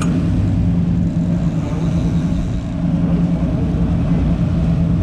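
The engines of a 1988 Ocean Yachts 48SS sportfishing boat running at slow trolling speed: a steady, deep drone. A short click sounds at the very start.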